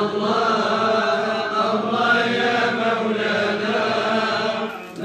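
Men's voices chanting amdah nabawiya, Moroccan praise poetry for the Prophet, in long held melodic lines without instruments, briefly dropping off near the end.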